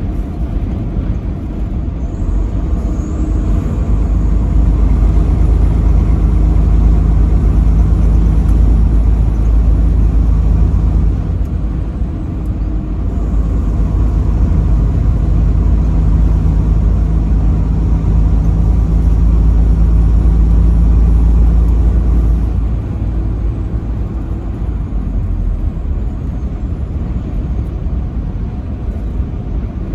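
Truck on the road: a continuous low engine and road rumble that swells twice for about eight seconds each time, with a steady drone in it, then settles back.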